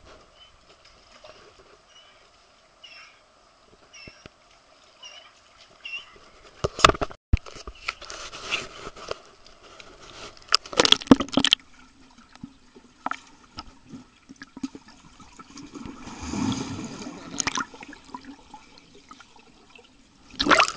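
Pool water sloshing and splashing around a camera in an underwater housing as it goes in and out of the water. There are several sharp splashes, about seven seconds in, around eleven seconds and near the end, and a muffled underwater gurgle in between.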